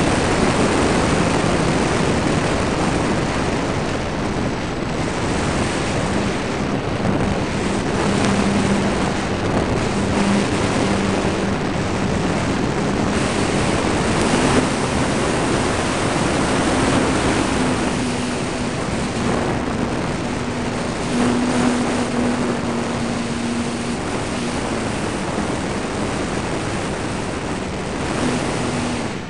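Onboard sound of an electric ParkZone T-28 Trojan RC plane in flight: heavy wind rush over the belly-mounted camera's microphone, with the faint steady tone of the electric motor and propeller underneath, stepping up in pitch partway through.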